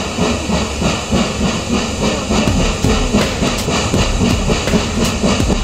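Steam locomotive working towards the listener: a steady, even beat of exhaust chuffs, about three a second, over a hiss of steam, with a low rumble building in the second half.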